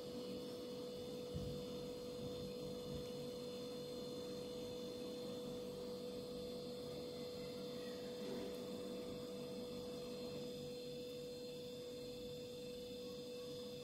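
Faint steady electrical hum with one constant tone: room tone, with no clear sound from the dough being shaped.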